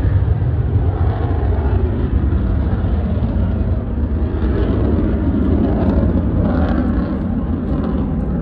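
RAAF F-35A Lightning II's afterburning turbofan jet engine rumbling steadily while flying its display out of sight, easing slightly near the end.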